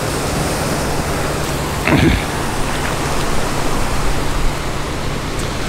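Steady rushing wash of gentle surf on the beach, with one brief short sound about two seconds in.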